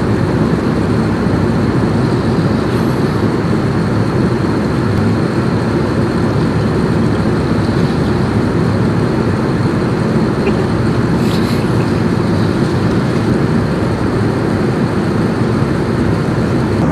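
Steady airliner cabin noise: the even drone of engines and rushing air, with a faint high tone.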